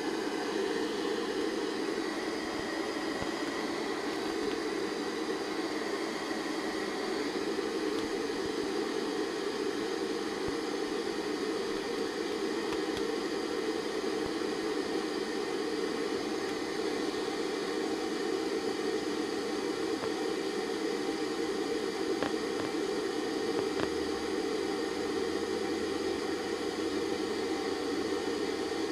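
Steady, even whooshing background noise, as from a running fan or air conditioner, with a few faint ticks. A faint low hum joins in late on.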